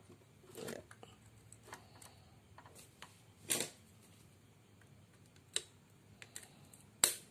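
A few sharp metallic clicks and light taps, a couple of seconds apart, as a screwdriver and small parts work on the gears and aluminium crankcase of a Kawasaki Ninja R/RR two-stroke engine being assembled, seating a gear's retaining lock.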